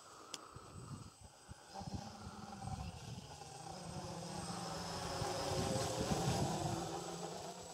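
Hobby King HK 525 quadcopter's electric motors and propellers buzzing as it flies over, growing louder to a peak about six seconds in and then starting to fade.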